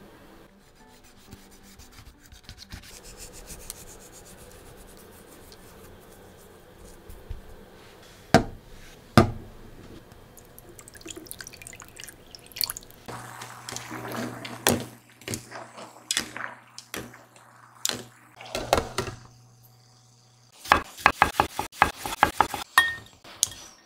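Kitchen sounds of cooking: two sharp knocks, then water poured into a pan of eggs over a steady low hum, then a quick run of knife taps on a wooden cutting board as cherry tomatoes are sliced near the end.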